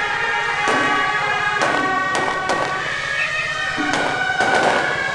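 Procession band playing: loud reedy wind instruments hold and change notes over one another, with a sharp percussion strike roughly every second.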